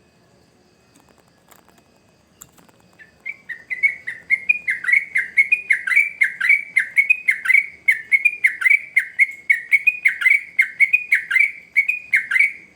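Yellow-vented bulbul (trucukan) singing a long, fast run of repeated downward-slurred whistled notes, about three a second. The run starts about three seconds in, after a few faint clicks.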